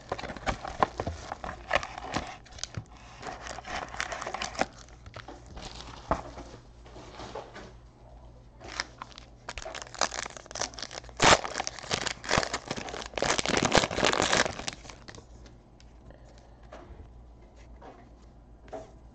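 Foil wrapper of a trading-card pack crinkling and tearing as hands open it, loudest in the middle stretch. Near the end there is only faint handling of the cards.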